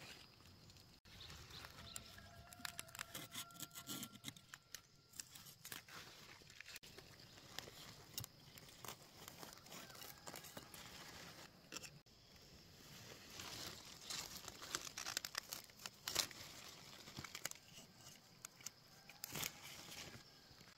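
A knife blade slicing through crisp lettuce stems at the base, with the leaves crunching and crackling as they are gripped and pulled by hand: a string of small crunches and rustles.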